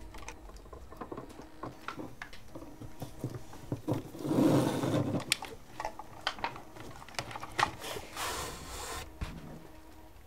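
Scattered small clicks and taps from hands handling jumper wires and a circuit board and typing on a computer keyboard. A louder rustling noise lasts about a second around four seconds in, and a shorter hissy one comes near eight seconds.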